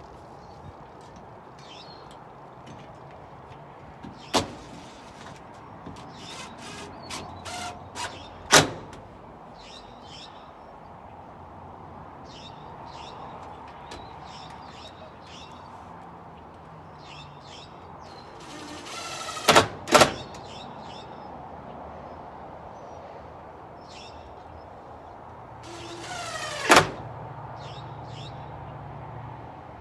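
Five loud, sharp knocks from hand work on a wooden rabbit hutch. Two of them come close together about twenty seconds in, and short scraping noises lead into the later ones. Faint high chirps run between them.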